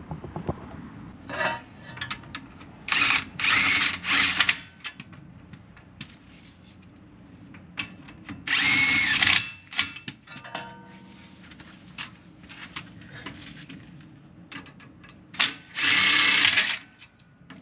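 Impact wrench running in short bursts, spinning down the new U-bolt nuts that clamp a Sprinter van's rear leaf-spring pack to the axle, snugging them before final torque. A cluster of quick bursts about three seconds in, a longer run around nine seconds and another near sixteen seconds, with brief clicks between.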